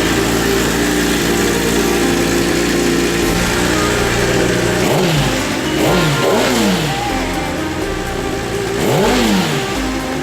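Kawasaki ZX-10R inline-four idling through a newly fitted Mivv slip-on exhaust, blipped up and back down four times: three quick revs about halfway through and one more near the end.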